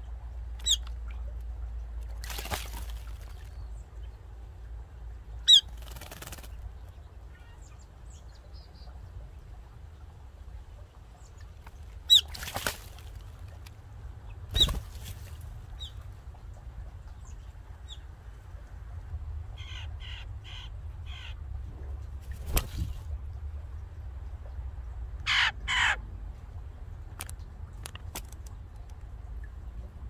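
Eurasian jay giving two harsh, rasping screech calls about three-quarters of the way through, among scattered short, sharp bird chirps over a low steady background.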